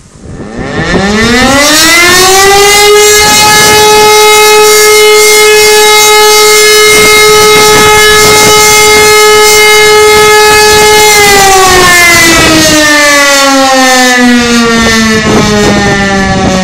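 E57 electromechanical siren sounding one blast of the fire-alarm test signal. It winds up in pitch over about two seconds, holds one loud steady tone for about eight seconds, then slowly winds down in pitch as the rotor coasts.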